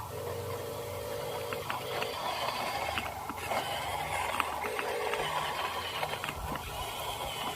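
Small electric motors and plastic gearboxes of remote-control construction models whining in short spells, starting and stopping, with scattered clicks of gears and parts.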